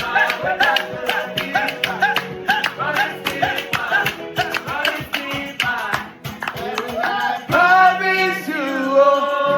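Instrumental break of a gospel praise song: a plucked guitar riff of quick, evenly repeated notes over the band. Long held notes, sung, come in about three quarters of the way through.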